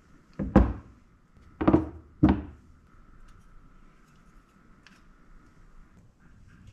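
Objects set down and handled on a wooden workbench: three knocks in the first two and a half seconds, the last two close together, with a faint steady high tone in the background afterwards.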